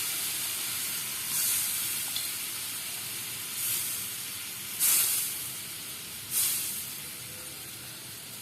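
A pan of mushroom rasam with spices and ghee sizzling and hissing on the stove, with four brief louder flares of hiss; the loudest comes about five seconds in.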